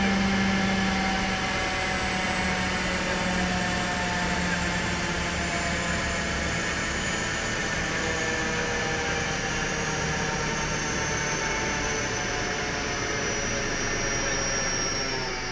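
A car on a rolling-road dyno with its engine running, under the steady rush of a large workshop cooling fan. Faint whining tones fall slowly in pitch throughout, as something winds down.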